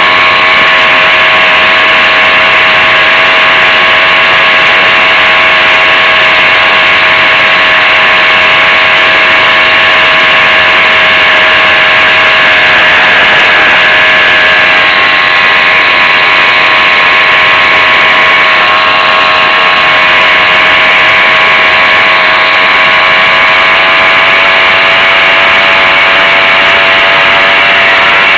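Zündapp M50 Bergsteiger moped's 50 cc two-stroke single-cylinder engine running steadily under way, loud and at a near-constant pitch, with small pitch shifts about halfway through.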